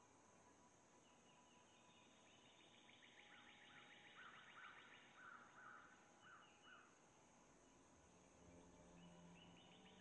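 Faint bird-like chirping over a steady high hiss: a fast high trill that runs for several seconds, with a string of about eight short rise-and-fall chirps in the middle. A low tone comes in near the end.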